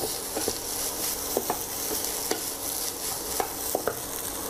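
Fried rice sizzling in a hot nonstick pan as a wooden spatula stirs and turns it, with a few sharp taps of the spatula against the pan.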